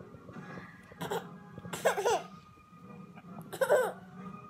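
Laughter in three short bursts, about a second and a half apart.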